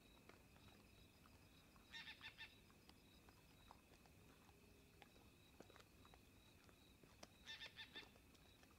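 A bird calling twice, each call a quick series of about four pitched notes, about two seconds in and again near the end. A faint, steady, high-pitched insect drone runs underneath.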